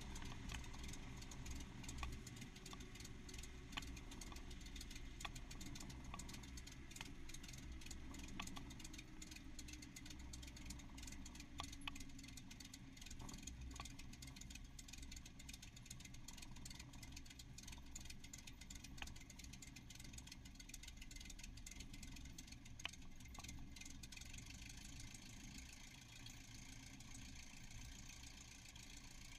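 Cessna 172S's Lycoming four-cylinder engine idling during the landing rollout, faint and muffled, over a steady low rumble and wind hiss, with scattered light clicks. It grows a little quieter near the end.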